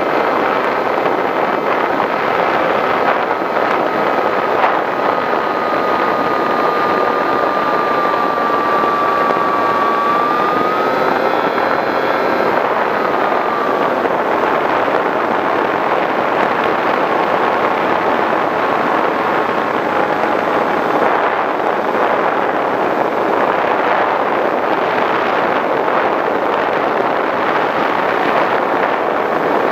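Skywalker V6 FPV plane's 910kv brushless electric motor and propeller running in flight, heard from on board as a thin whine over a constant rush of air. The whine sags slowly in pitch, rises briefly near the middle, then fades, leaving mostly the rush of air.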